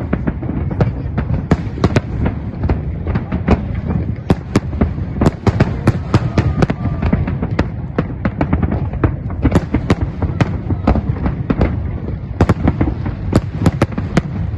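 Fireworks display: a dense run of sharp bangs and crackles, several a second and overlapping, over a steady low rumble of more distant bursts.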